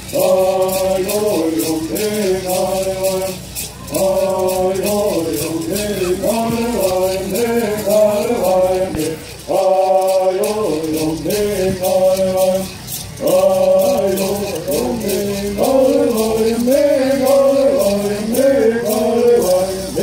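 Men singing a Southern California bird song in unison, in chanted phrases broken by short pauses, with gourd rattles shaken in a steady beat.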